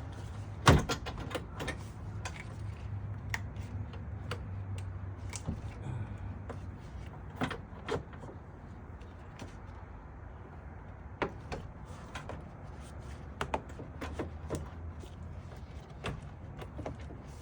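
Plastic air-intake parts being handled and fitted in a car's engine bay: scattered clicks and knocks, the loudest under a second in, over a low steady hum.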